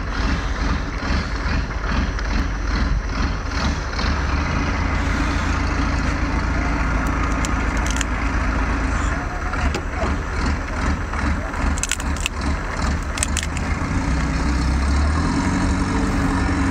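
Low steady engine rumble throughout, with a few sharp cracks and crunches as a cooked lobster's shell is broken and bitten.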